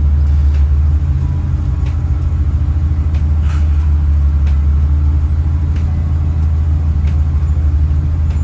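Steady low engine and road drone of a vehicle being driven, heard from inside its cabin, easing slightly about a second in.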